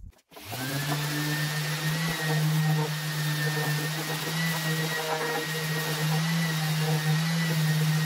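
Random orbital sander running steadily on a wooden spade handle, with its hose-connected dust extractor running, a steady hum with a thin high whine above it. It starts about half a second in.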